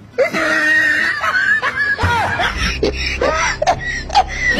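Dubbed comedy soundtrack: high, squeaky voices and snickering laughter, with a low hum coming in about halfway through.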